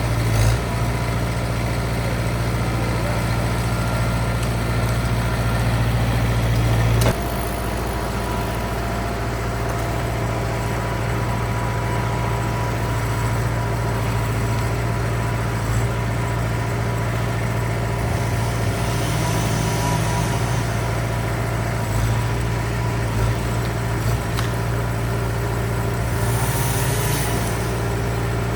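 Skid steer engine running steadily under a constant drone, easing off slightly about seven seconds in.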